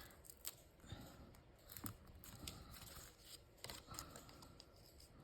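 Faint scattered ticks and light rustles of hands sticking adhesive foam squares onto die-cut cardstock pieces.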